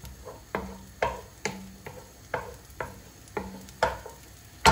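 Wooden spoon stirring chopped onion in oil in a stone-coated non-stick frying pan, knocking against the pan about twice a second. A faint sizzle of the onion frying runs underneath.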